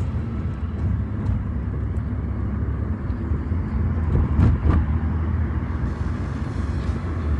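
Road noise from a moving car: a steady low rumble of engine and tyres, with a louder swell about four and a half seconds in.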